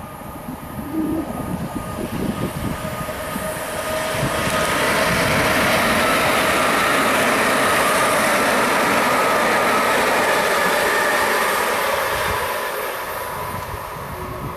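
A Class 377 electric multiple unit passing close by at speed: wheel-on-rail noise swells for a few seconds, holds loud, then fades away near the end. A few steady high tones run over the rumble.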